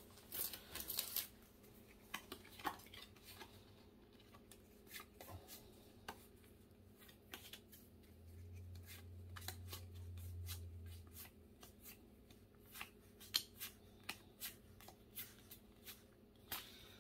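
Pokémon trading cards being flipped through by hand, one after another, each card slid off the stack with a soft click, faint and coming about twice a second.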